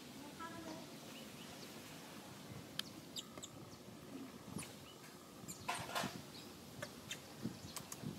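Faint, scattered animal sounds: a short pitched call near the start, then brief high chirps and ticks, with a short rustle about six seconds in.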